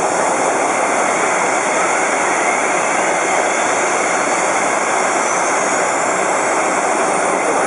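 Rolls-Royce Trent 900 turbofan of an Airbus A380 running on the ground: a steady, loud rushing jet noise, with a faint high whine that glides steadily upward in pitch through the second half.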